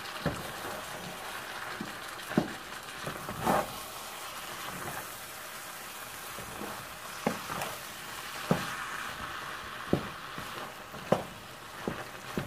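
Wooden spoon stirring a pot of yam porridge and breaking up the soft cooked yam pieces, with irregular sharp knocks of the spoon, over a steady sizzling hiss from the hot pot.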